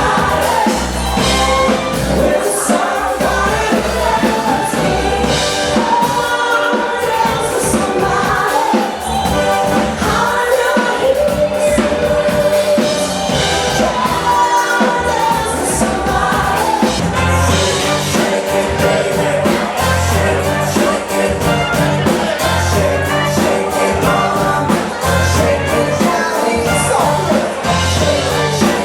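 Live band playing amplified music with singing. A heavy bass pulse comes in about two-thirds of the way through.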